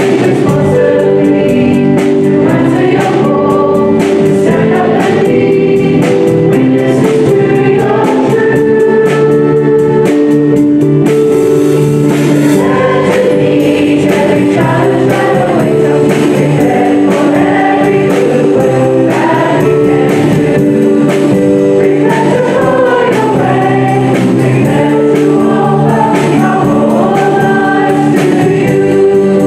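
A choir and congregation singing a hymn together, loud and steady, with long held notes.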